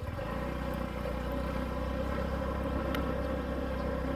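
Small motorbike engine running steadily while riding at a low speed, an even low hum with no change in pitch.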